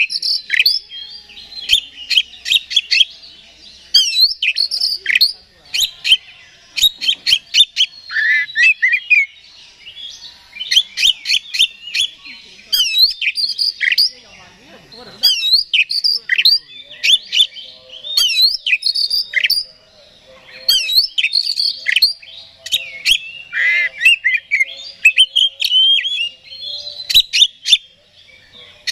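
Oriental magpie-robin singing vigorously: fast, varied runs of sharp whistles, sweeping notes and harsh chips, phrase after phrase with only short pauses, the full song that keepers call gacor.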